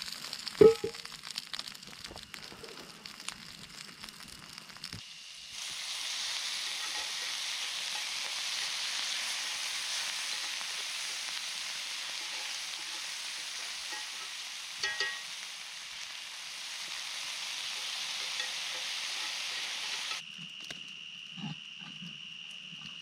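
Food sizzling in a frying pan over a campfire: a steady frying hiss for about fifteen seconds that cuts off suddenly. Before it comes a single sharp knock with a few softer clicks, and after it a faint steady high insect-like buzz.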